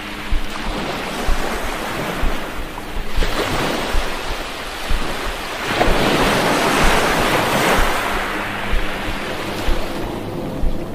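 Rushing noise of a shallow stream and wind on the microphone, swelling twice, over background music with a low beat about twice a second.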